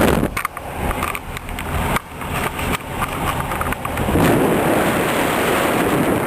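Cabin noise of a 1964 Volkswagen Beetle on the move: a steady rush of engine and road noise. It drops away about a third of a second in, with scattered clicks and knocks, and comes back up about four seconds in.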